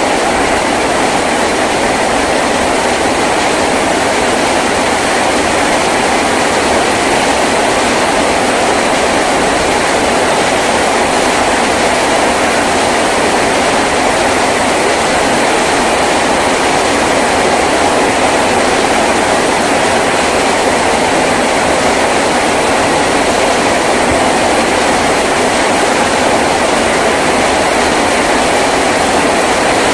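Heavy rain falling on a tin roof: a loud, steady, even rush of noise that does not let up.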